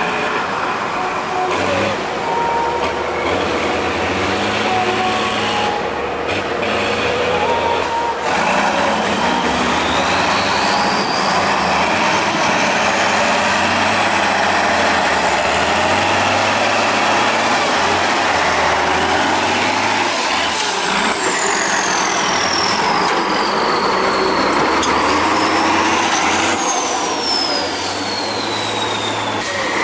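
Tatra 815 8x8 trial truck's diesel engine working hard under load as the truck crawls over steep dirt mounds, its note shifting as the driver works the throttle. A high whine rises and falls several times on top of it.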